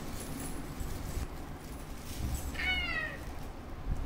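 A single short, high meow-like call that slides down in pitch, about two and a half seconds in.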